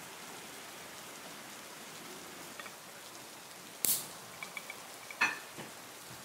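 Steady hiss of rain. About four seconds in comes a sharp knock as the lid comes off a glass jar candle, followed by a few quick clicks and a sharper snap as a wand lighter is clicked to light it.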